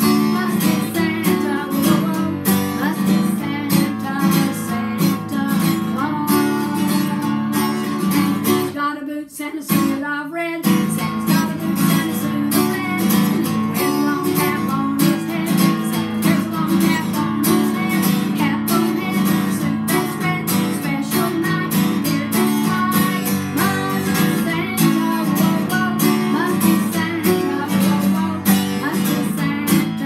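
Acoustic guitar strummed in a steady rhythm, with a woman singing along. The playing breaks off briefly about nine seconds in, then carries on.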